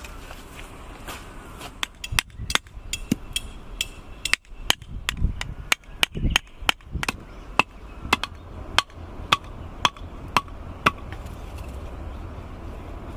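Repeated hammering blows, about twenty sharp strikes at roughly two a second, each with a short ringing tone, stopping about eleven seconds in.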